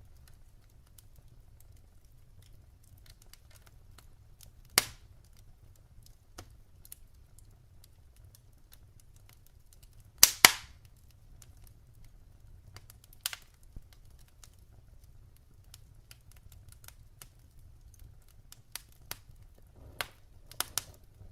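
Wood fire burning in a fireplace: scattered sharp crackles and pops over a faint low hum, with a loud pop about five seconds in and a louder double pop about ten seconds in.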